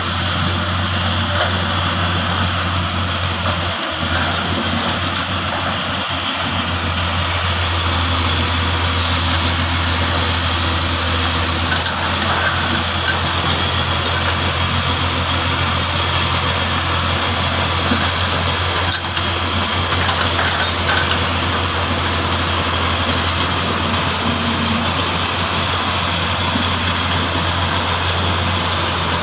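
Diesel engines of a crawler bulldozer and a single-drum vibratory road roller running steadily while they work earth, a constant low drone.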